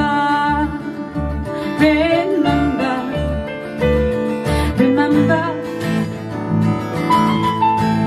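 A small band playing a song: strummed acoustic guitar, electric bass pulsing about twice a second and keyboard, with a woman singing a few long, wavering notes.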